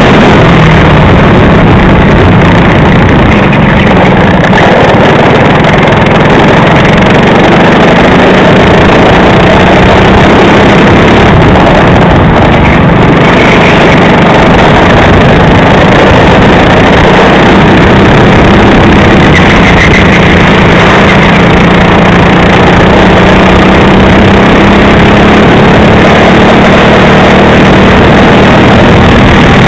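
Racing kart engine running hard at speed, recorded from the kart itself. It is loud and flat, close to distortion, and its pitch rises and falls a little.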